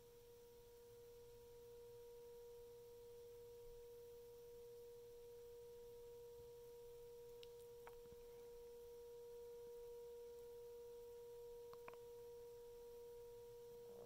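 Stomach making a long, steady, pure whining tone that holds one pitch without wavering, with a fainter tone an octave above, all near the threshold of silence; there are a few faint clicks around the middle and near the end.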